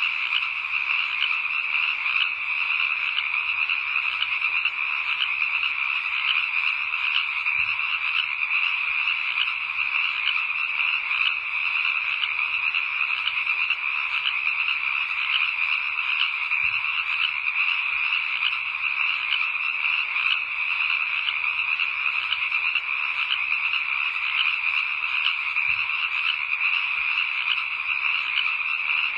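Steady night chorus of many frogs calling at once, their overlapping high trills blending into a continuous, unchanging wall of sound.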